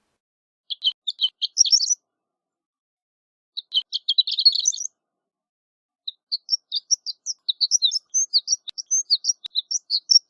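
Horned lark singing: three bursts of high, tinkling notes, two short phrases of about a second and a half each and then a longer run of quick notes near the end.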